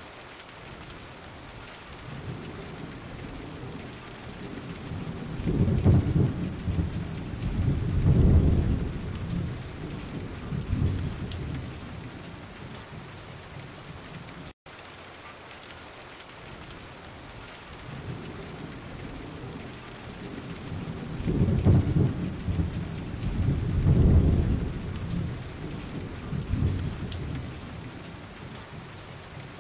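Steady rain hiss with low rolls of thunder: two rumbles swell and fade a few seconds in, and the same rain-and-thunder sequence repeats exactly about fifteen seconds later, as a looped track does.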